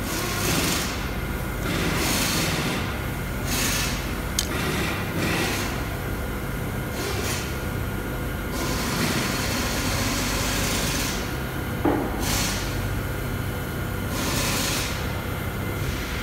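Handling of a gate valve's threaded stainless-steel stem and its small parts with a pick and gloved hands: rubbing and scraping, with a sharp metallic click about four seconds in and another near twelve seconds. A steady machine hum runs underneath.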